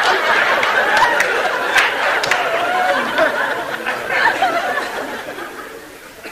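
Audience laughing after a punchline, the laughter dying away over several seconds.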